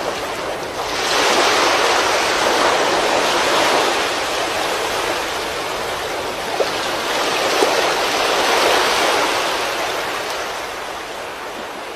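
Rushing floodwater: a steady noise of fast-moving water that swells about a second in and again around eight seconds, then fades toward the end.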